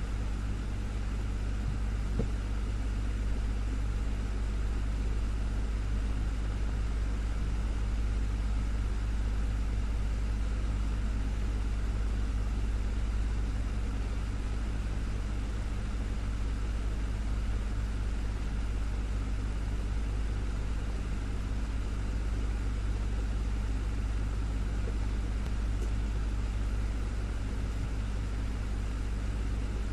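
Desktop fan running steadily: a constant low hum with an even whoosh of moving air.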